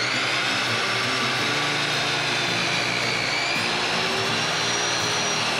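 Sliding compound miter saw running at full speed and cutting through a pressure-treated 4x6 beam, a steady, even motor whine throughout.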